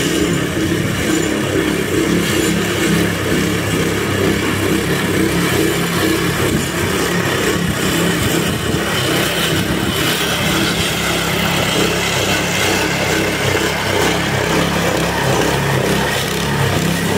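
Petrol engine of a Weibang lawn scarifier running steadily under load as the machine is pushed across a lawn, its blades raking out moss and thatch.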